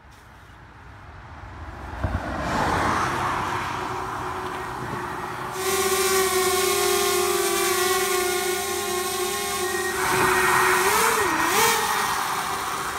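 DJI Mavic Air quadcopter's propellers running as it takes off: a rushing noise builds first, then a steady high whine sets in about five and a half seconds in. Near the end a rush of air joins the whine as the drone climbs, and its pitch dips briefly and comes back.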